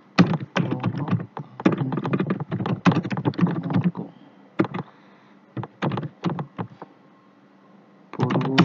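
Computer keyboard typing: two quick runs of keystrokes, then a few separate key presses, a pause of about a second, and a fresh run of typing near the end.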